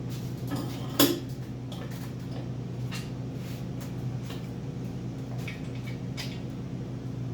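Scattered metal knocks and clinks from handling a stripped Nissan Z24 engine and its tools, with one sharp knock about a second in, over a steady low hum.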